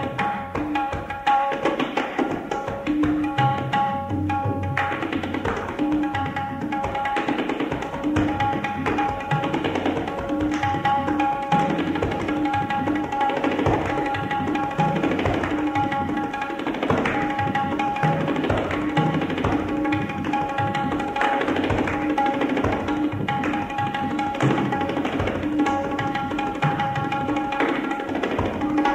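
Instrumental music with fast drum percussion over repeated held notes.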